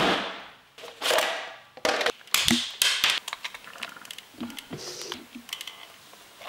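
Light clicks and taps of fingers handling the plastic chassis and parts of an electric RC car around its motor and pinion gear, with a few sharper knocks in the first three seconds and quicker, fainter ticks after.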